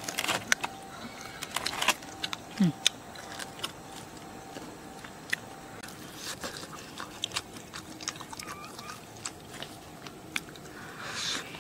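A person tearing into and chewing a roasted beef hoof held in both hands: wet mouth smacks and scattered small clicks of biting and chewing, busier in the first couple of seconds.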